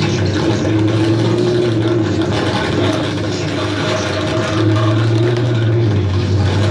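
Electronic noise drone from a chain of effects pedals and homemade noise circuits: a steady low hum under a dense buzzing texture. The low hum swells louder about four and a half seconds in.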